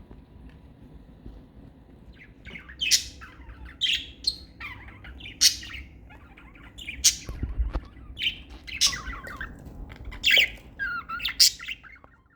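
Budgerigars chirping and squawking in a run of short, sharp calls that starts about two seconds in.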